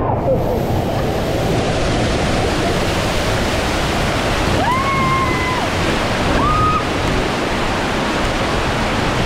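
Steady rush of water on a water-park raft slide, with two brief high-pitched calls about five and six and a half seconds in.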